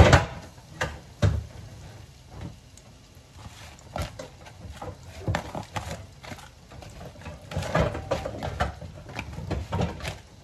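Breaded cutlets deep-frying in a pan of hot oil, crackling, with irregular taps and knocks of chopsticks against the pan; the loudest knock comes right at the start.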